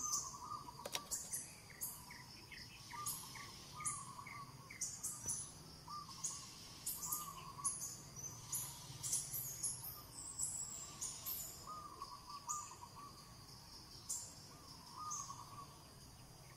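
Birds chirping and calling: a short warbling call repeats every second or two, over many scattered quick, high chirps.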